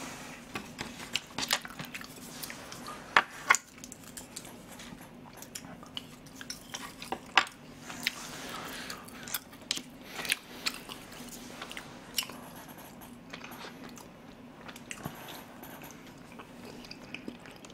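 Close-miked mouth sounds of someone eating rice porridge with a plastic spoon: wet chewing, lip smacks and slurps, broken by scattered sharp clicks.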